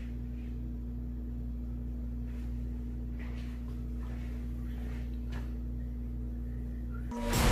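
A steady low hum with a few faint light knocks, and music coming in near the end.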